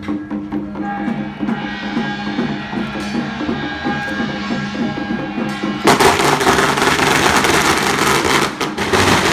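Taiwanese temple procession music: drums and percussion beating over a steady held melody, turning much louder and denser about six seconds in.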